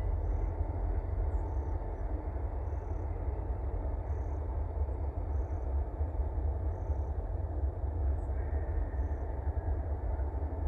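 Distant rail yard at work: a steady low rumble of diesel locomotive engines, with a faint wheel squeal rising briefly about eight seconds in.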